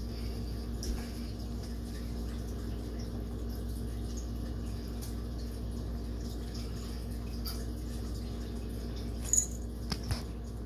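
A cat eating from a plate close to the microphone: soft, scattered chewing and licking clicks over a steady low hum, with a couple of louder clicks near the end.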